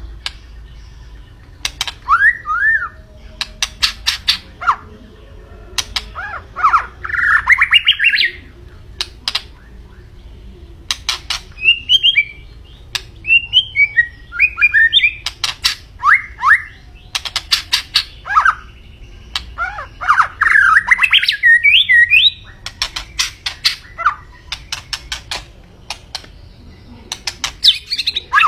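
White-rumped shama singing energetically, rapid clusters of sharp clicking notes alternating with loud whistled, warbling phrases that slide up and down.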